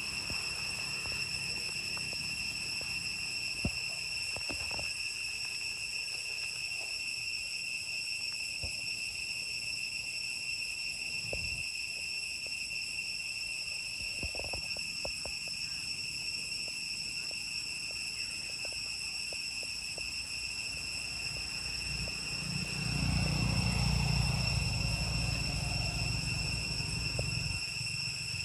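Steady high-pitched drone of insects, with scattered faint clicks. About three-quarters of the way through, a low rumble rises and lasts several seconds.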